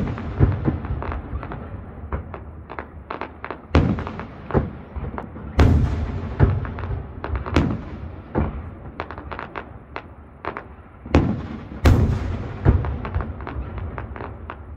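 Fireworks display: a steady series of booming shell bursts echoing, with a few heavy bangs standing out, and quicker crackling pops in between.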